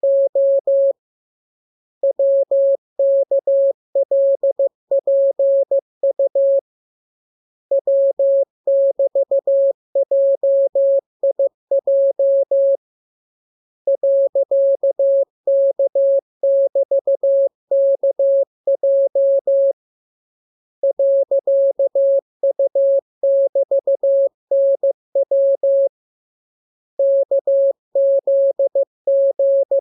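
Morse code (CW) practice signal: a single steady mid-pitched tone keyed on and off into dots and dashes. It comes in runs of about five seconds, each separated by a pause of about a second.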